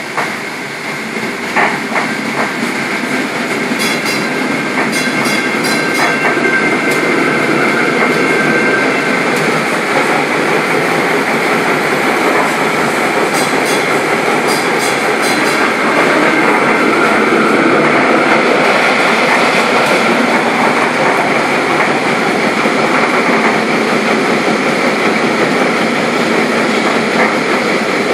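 Running noise inside a restored PCC streetcar under way, with wheels on rails and the car's motors. It builds over the first few seconds as the car gathers speed, with a few sharp clicks early on and a rapid run of high ticks twice.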